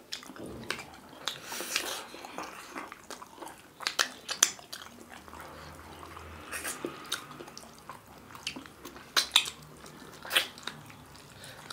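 Close-up eating sounds of people eating millet dhido and chicken curry with their fingers: wet chewing, lip smacks and irregular sharp mouth clicks, with a few louder smacks in the second half.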